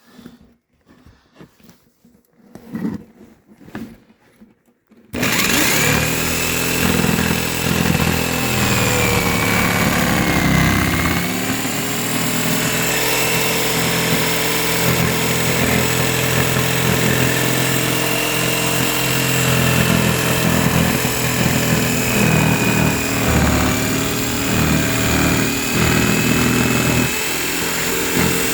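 An electric power saw starts about five seconds in and runs steadily under load, cutting a line through the floor. Its motor whine sags briefly partway through, then recovers, and winds down as the cut ends.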